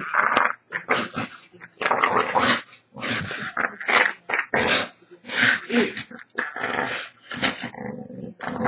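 American Staffordshire terrier growling in repeated short bursts while being wrestled by hand: play growling, not aggression.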